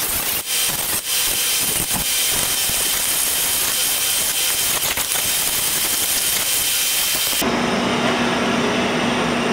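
Angle grinder's cutting disc running through 1/8-inch steel flat bar clamped in a vise, a steady loud grinding hiss. It stops about seven and a half seconds in, leaving a steadier, lower hum.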